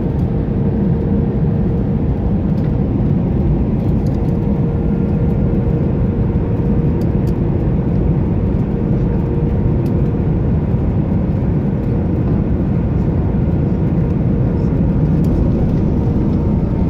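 Airliner cabin noise heard from a window seat during the landing: a steady, loud rush of engines and airflow, heaviest in the low range, with a faint steady hum.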